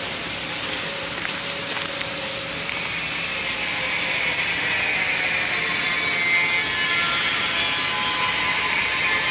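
Automatic flow-wrap sponge packing machine running with a steady mechanical hiss and whir, a few faint ticks, and a thin whine from about six seconds in. Sealed plastic film crinkles as the wrapped sponges are handled.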